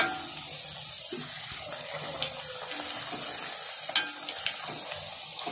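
Thattai (rice-flour discs) deep-frying in hot oil in a kadai: a steady sizzle. A perforated ladle turning the discs clinks sharply against the pan at the start and again about four seconds in, with a few lighter ticks.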